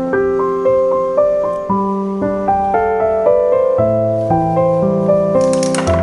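Background piano music: a light melody of single notes, each fading after it is struck, over lower held notes. A hissing shimmer joins near the end.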